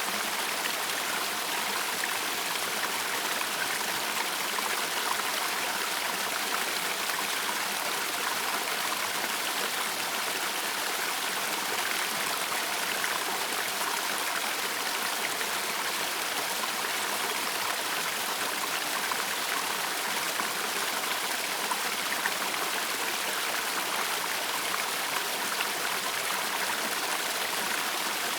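Small waterfall on a woodland stream, recorded close up: water spilling down a granite slab in a steady, even splashing and trickling rush.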